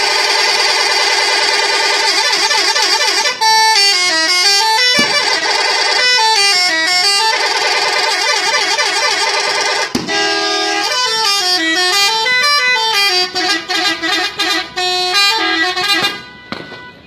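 SCH-721 multi-tone vehicle horn sounding a melody: a loud, continuous blare of several tones at once. The pitches run down and back up in repeated phrases, with a stuttering run of short blasts near the end before it cuts off.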